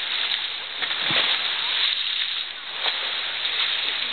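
Steady rushing noise of wind and churned water, with a few brief splashes from a swimmer and an inflatable liferaft in a pool.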